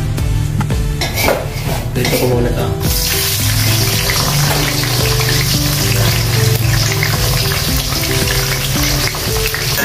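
Tofu cubes going into hot oil in a wok, with some clattering, then the oil breaking into a loud steady sizzle about three seconds in as the tofu fries again to crisp it. Near the end the cubes are turned in the oil.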